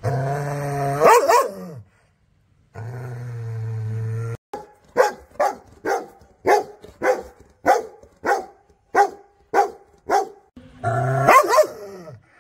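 Rottweilers growling and barking: a low steady growl broken by a single loud bark, then a run of about ten sharp barks, roughly two a second, then more growling with a bark near the end.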